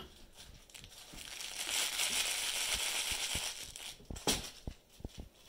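Crinkle material inside a puppy's plush toy crackling steadily for about three seconds as the dog chews and noses at it, then a few sharp clicks.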